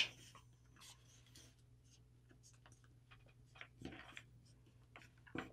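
A sheet of printer paper being handled and creased while a paper airplane's winglet is folded: faint rustles and small crinkles, with a louder paper rustle about four seconds in and another near the end.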